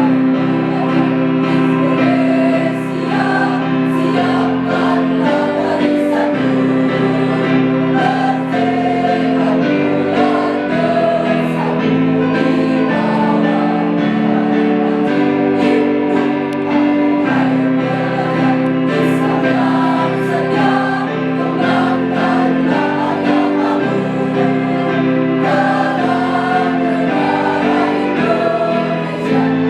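A student choir sings together, many voices holding long notes in chords that change every second or two.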